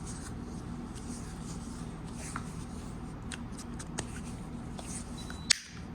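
Faint clicks and rustles of hands handling plastic Play-doh toys over a steady low hum, with one sharp click near the end.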